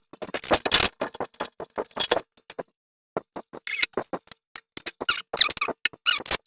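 Small shower-door parts and silicone seal pieces being handled and put into a plastic baggie: quick crinkling and clicking for a couple of seconds, then, after a short break, a run of short rubbery squeaks.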